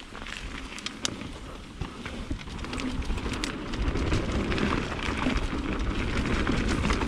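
Mountain bike tyres rolling and crackling over a dirt trail, with wind rumble on the microphone, growing louder about halfway through as the bike picks up speed.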